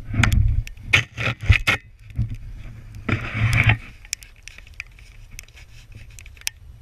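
Close handling noise as a person climbs off a plastic sled in the snow: a run of knocks and rubbing in the first two seconds, a short harsh scrape about three seconds in, then faint scattered clicks.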